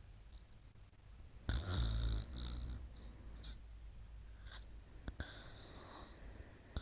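Snoring in sleep: one loud snore about a second and a half in, trailing off over the next second, then softer breaths with a couple of short clicks later on.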